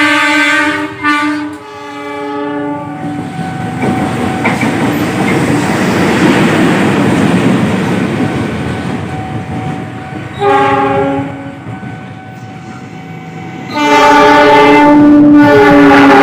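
Multi-tone Basuri horn set to sound like a railway locomotive horn, sounding a chord in blasts: two short ones and a third near the start, a short one about ten seconds in, and a long loud one near the end. Between the blasts a loud rushing rumble swells and fades.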